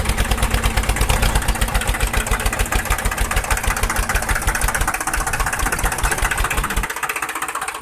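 Tractor engine sound: a steady, fast pulsing of about ten beats a second. Its low thump weakens about five seconds in and drops out near the end.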